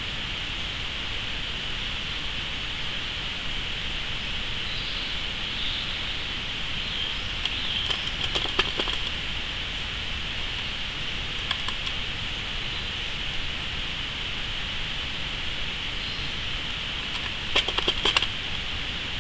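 Steady hiss with two short clusters of sharp clicks and rattles, one about eight seconds in and one near the end: a grey squirrel handling metal Longworth small-mammal traps.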